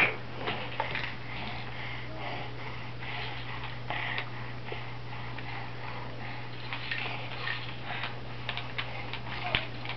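Scattered light clicks and taps of small hands handling a plastic baby toy, over a steady low hum.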